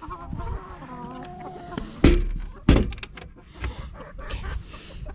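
A chicken calls in a drawn-out, wavering way for about a second and a half. Then come two loud wooden thunks about half a second apart, like a coop door or nest-box lid banging.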